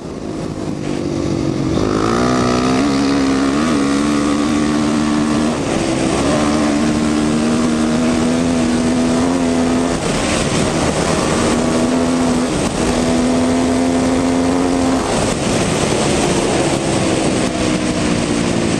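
Dirt bike engine running at a steady, fairly high speed while riding along a trail, the throttle eased off and back on a few times, with a rushing noise of wind and tyres on dirt.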